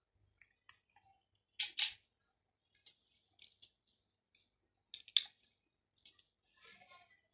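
Close-up eating sounds: a woman biting and chewing food, with two sharp, noisy bites about a second and a half in and again about five seconds in, and smaller scattered mouth clicks between.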